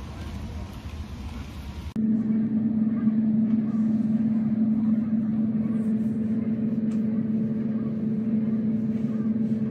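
Outdoor background noise for about two seconds, then an abrupt change to a loud, steady low hum that holds unchanged to the end.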